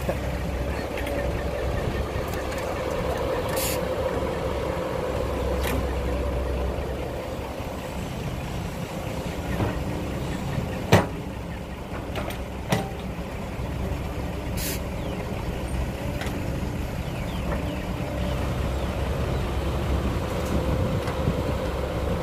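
Cat 312B hydraulic excavator's diesel engine running steadily under digging load, with a few sharp knocks from the bucket and boom, the loudest about halfway through, and a couple of short hisses.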